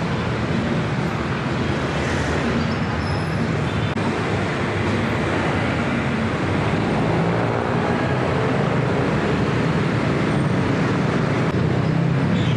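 Steady road traffic noise from cars, vans and motorcycles, a continuous mix of engines running with a low hum underneath.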